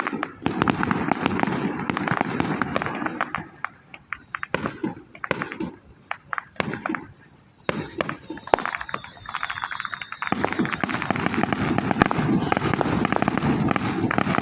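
A string of firecrackers going off in rapid crackling pops. The pops thin out and quieten in the middle, then pick up again dense and continuous for the last few seconds.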